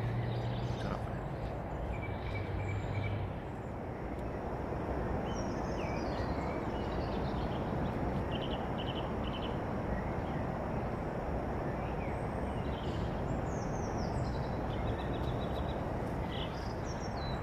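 Dawn lakeside ambience: a steady rushing background noise with small birds chirping now and then. A low hum sounds for the first three seconds or so, then stops.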